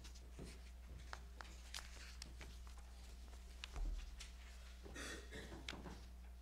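Faint rustling of hymnbook pages with small clicks and handling knocks, and a low thump just before four seconds in, over a steady low electrical hum.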